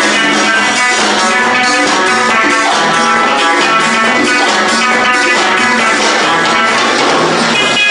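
Music with guitar and a steady drum beat.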